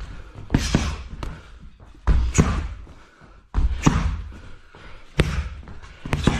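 Muay Thai strikes smacking into hand-held Thai pads, about six sharp hits, some in quick pairs, each followed by a short hiss.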